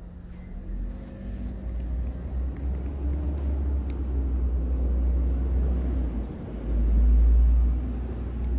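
A low rumble that rises and falls unevenly, swelling to its loudest about seven seconds in.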